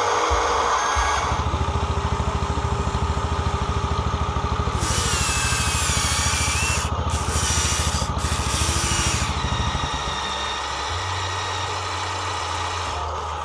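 Remote-control construction machine running: a steady low mechanical hum with a rapid pulse, joined by a higher wavering motor whine from about five to nine seconds in, which cuts out briefly twice.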